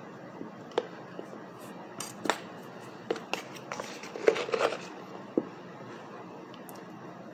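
Dry Argo cornstarch being eaten close to the microphone: scattered sharp crunches and clicks, several in quick succession about four to five seconds in.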